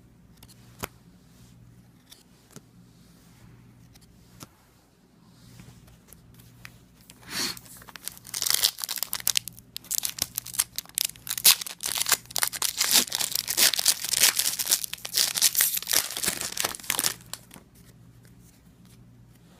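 A trading card pack wrapper being torn open and crinkled by hand, a dense crackling rustle that starts about seven seconds in and stops near the end, after a few light clicks of handling.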